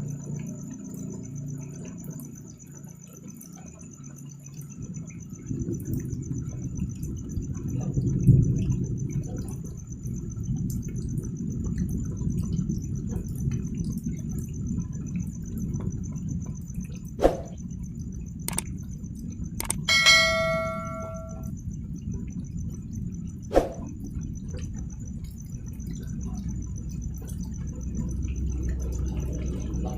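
Crickets chirping in a steady high trill over a low, steady rumble. A few sharp clicks come through in the second half, and one metallic ding rings out for about a second and a half just past the middle.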